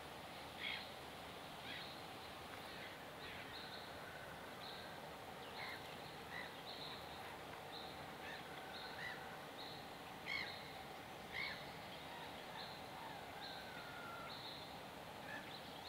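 Small birds chirping and calling in short, high notes, with a few louder chirps about ten and eleven seconds in, over a steady faint background hum of outdoor noise.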